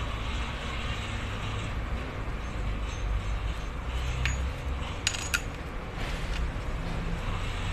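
A few light metallic clinks, one about halfway through and two close together just after, as steel connecting rods, bearing shells and pistons are handled, over a steady low rumble.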